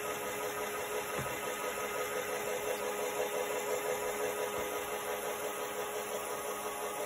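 Small LEGO Power Functions electric motor running steadily with a continuous whir, slowly driving the toy lift upward.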